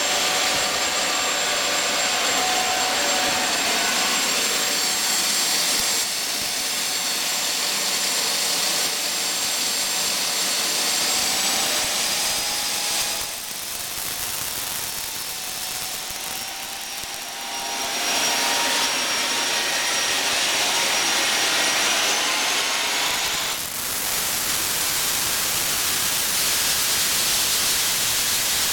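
Homemade gas turbine jet engine running loud on its test stand: a steady rushing roar with a high whine that rises in pitch twice as it spools up. The roar drops in loudness for a few seconds in the middle.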